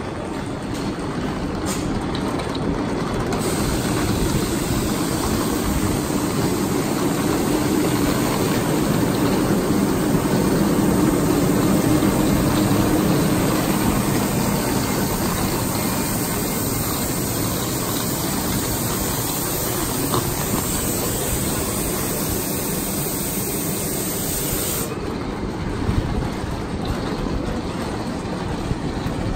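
Steady hissing rumble of electric locomotives and coaches standing at a station platform. It swells to its loudest about halfway through and eases off, with one sharp knock near the end.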